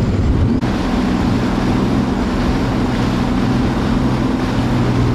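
A watercraft engine running steadily at a constant pitch, with wind and water noise over it. The sound changes abruptly about half a second in.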